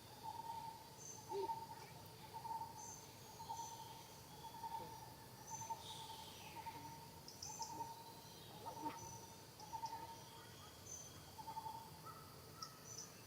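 A bird repeating a short, even note about twice a second, stopping near the end, with faint high chirps from other birds over a steady outdoor background hiss.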